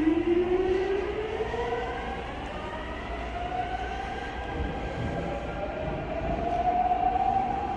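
Seoul Subway Line 5 electric train pulling away from the platform, its traction motor drive giving a whine that rises in pitch as the train picks up speed, stepping up more than once, over a low rumble of the moving cars.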